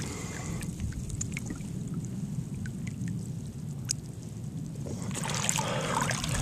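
Water splashing and trickling around a snook held in a lip gripper at the side of a kayak, quieter with a few faint ticks in the middle and louder from about five seconds in, over a steady low rumble.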